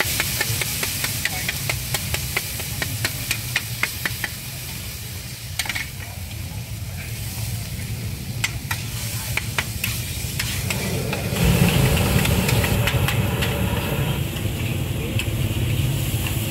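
Metal spatula clacking and scraping on a large flat wok as fried radish cake and bean sprouts sizzle, with sharp irregular clicks over the frying hiss. About ten seconds in, a louder low engine rumble of street traffic and motorbikes takes over.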